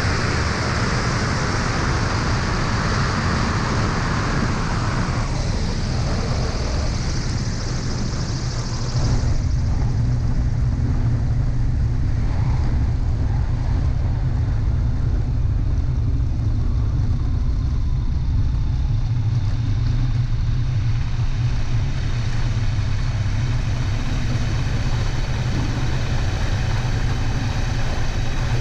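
Aeroprakt A22 ultralight's engine and propeller droning steadily, mixed with wind rush over the wing-mounted camera. About nine seconds in, the wind hiss drops and the engine's low drone grows louder.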